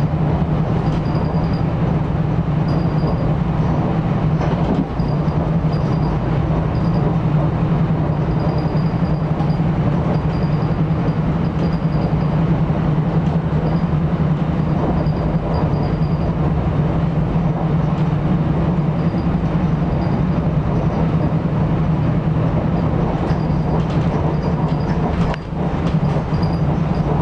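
Interior of a moving NJ Transit commuter train car riding at speed: a steady rumble with a strong low hum, and faint high-pitched tones that come and go. The rumble dips briefly near the end.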